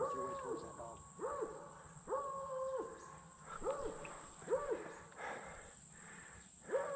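Blood-tracking dog baying repeatedly, drawn-out calls each holding a steady pitch, about one a second with a short pause near the end. The dog has found the wounded buck and is bayed up on it.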